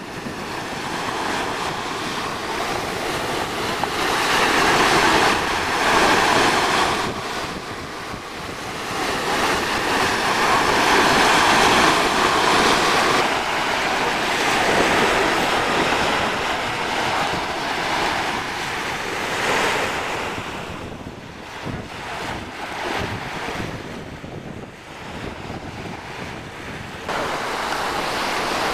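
Small waves breaking and washing up on a sandy shore, the surf swelling and ebbing every few seconds, with wind on the microphone.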